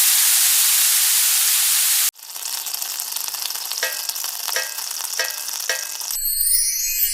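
Food sizzling as it fries on a hot pan, a loud steady hiss that cuts off abruptly about two seconds in. A quieter sizzle follows, with four light pitched taps about half a second apart, and near the end the sound changes to a thinner, high patterned sound.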